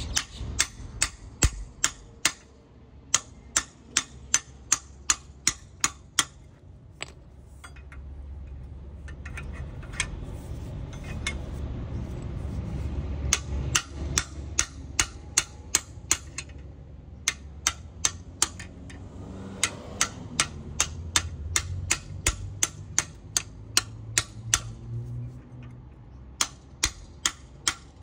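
Claw hammer striking a steel chisel or bar wedged in a metal storm-drain grate, in runs of sharp metallic blows about two a second with short pauses between, as the grate is knocked loose to open it. A low rumble rises and falls underneath.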